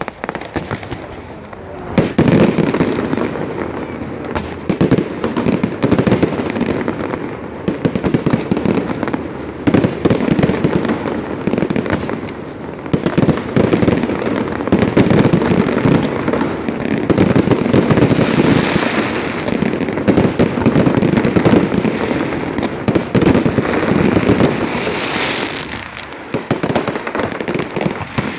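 Fireworks display: a dense, rapid run of bangs and crackling bursts, building up about two seconds in and keeping on almost without a break.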